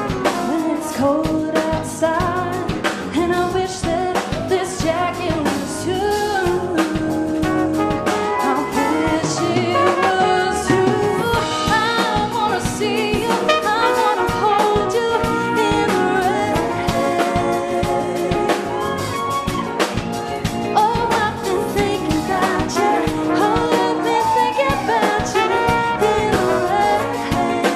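Live band music: a woman singing lead over a drum kit, with a flugelhorn played near the end.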